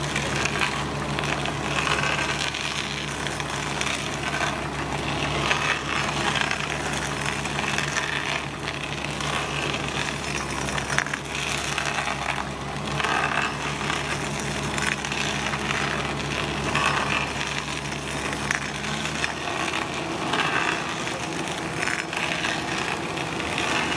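Rotor hydraulic auger-type stump grinder boring down into a tree stump, its screw bit crunching and tearing the wood into chips, over the steady running of the carrier machine's engine. The engine's note changes about 19 seconds in.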